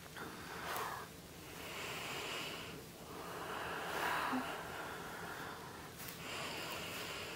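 A woman breathing slowly and audibly while lying at rest, a few long breaths in and out.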